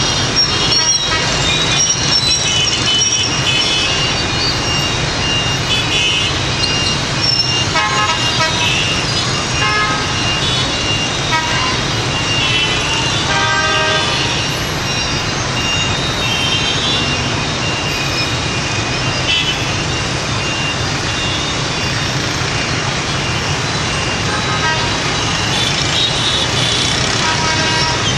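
Dense rush-hour traffic, mostly small motorbike engines with cars and buses among them, making a steady din. Horns beep now and then, most clearly in a cluster about halfway through.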